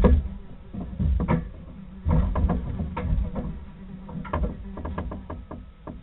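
Irregular knocks and scuffs on wood over a low rumble, with one sharp knock right at the start. Everything sounds dull, as if picked up by a small nest-box camera microphone.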